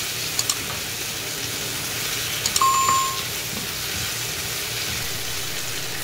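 Potato cubes with onion and tomato sizzling steadily in oil in a pan. About two and a half seconds in come a few quick clicks and a short electronic chime, the sound effect of a subscribe-button animation.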